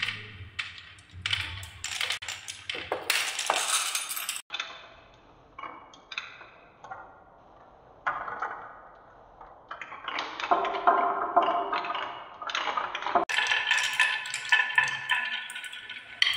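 Glass marbles rolling down wooden marble-run tracks, with many quick clicks and clacks as they hit the wood and each other, and a rattling, ringing run as a group spins round the wooden spiral.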